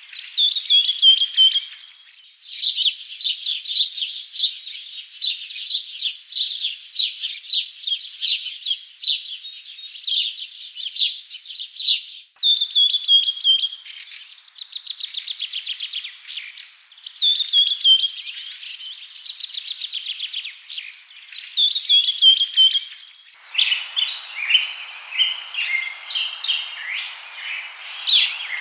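Songbird singing fast chirps and trills, with a short falling phrase repeated now and then. The song cuts abruptly several times, and near the end a different song comes in over a background hiss.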